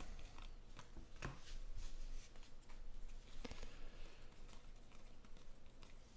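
Panini Mosaic football trading cards slid and flipped one by one through a hand-held stack: faint rustling with scattered light ticks as card edges snap past each other.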